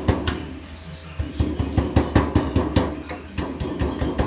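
Hammer tapping down the folded edge of a sheet-metal duct stack: a quick run of sharp metallic strikes, about five a second, after a short pause near the start. A low steady hum runs underneath.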